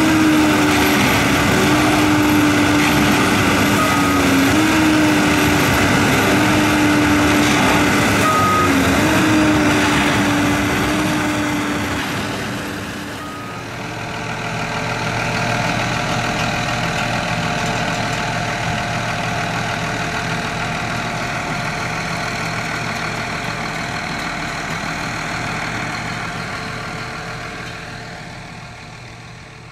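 Harsco 6700SJ2 track tamping machine running: a loud steady whine from its engine and hydraulics, stepping in pitch twice, with a short beep about every four and a half seconds. About thirteen seconds in the whine and beeps stop, and a lower, steady engine sound carries on, fading out near the end.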